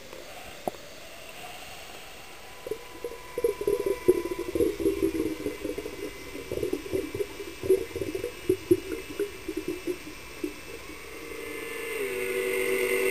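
Underwater gurgling and bubbling: an irregular run of short, bubbly pops lasting several seconds, over a steady hiss. Near the end a steady humming tone swells in.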